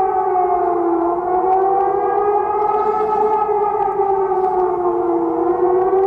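Emergency alert civil-defence siren wailing continuously, its pitch sagging slightly and recovering twice. The recording sounds distant and spacious, as if echoing through a whole city.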